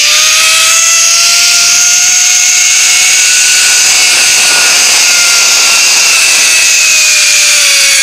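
Zipline trolley pulley whining as it runs along the steel cable, climbing in pitch over the first few seconds and then slowly falling, over a steady rush of wind.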